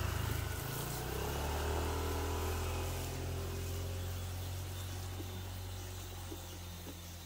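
A motor starts abruptly and runs with a steady low hum, slowly fading.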